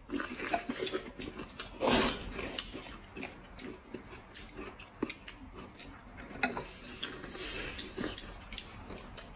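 Close-miked eating sounds: noodles being slurped from a bowl of soup and chewed, in short irregular bursts, with the loudest slurp about two seconds in and another near the end.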